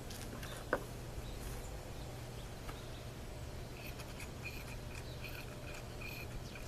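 Quiet outdoor background with a steady low hum, a single short knock less than a second in, and faint, repeated high bird chirps in the second half.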